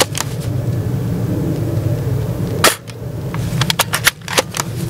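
Crown Type 96 Junior spring air-cocking airsoft rifle firing a single shot about two and a half seconds in, followed about a second later by a quick run of sharp clicks as the bolt is worked to cock it again.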